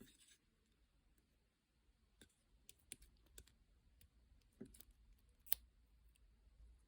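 Faint, scattered clicks and taps of stickers being handled on a desk, with one sharper click about five and a half seconds in.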